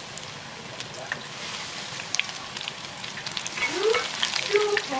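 Hot oil sizzling steadily with scattered sharp crackles as shrimp peyek batter fries in a shallow pan.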